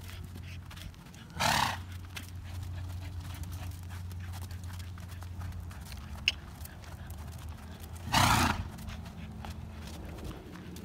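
Young Thoroughbred gelding snorting twice while trotting, short forceful blows out through the nose about a second and a half in and again about eight seconds in: nose-clearing that is one of the symptoms of its headshaking syndrome. Soft hoofbeats on sand go on between the snorts.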